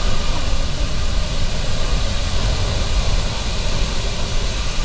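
Antonov An-124-100's four Lotarev D-18T turbofan engines running loudly and steadily as the aircraft taxis and turns on the runway, a dense rumble and hiss with a faint steady whine over it.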